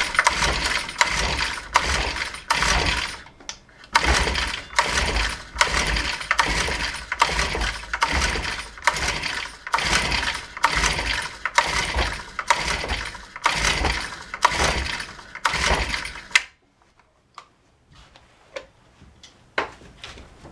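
Recoil starter of a Honda UMK-422 four-stroke string trimmer being pulled over and over, roughly one pull every three-quarters of a second. The engine cranks with each pull but never catches, a sign that it still won't start. The pulls stop abruptly about 16 seconds in, leaving a few faint clicks.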